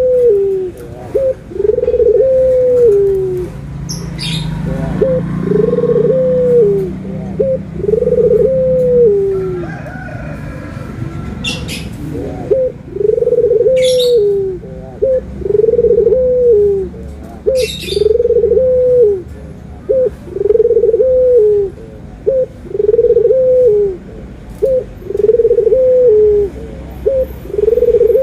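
Domestic ringneck dove (puter) cooing: a steady series of low coos about every two seconds, each a short lead-in note followed by a longer coo that drops at its end. A few sharp clicks come through in between.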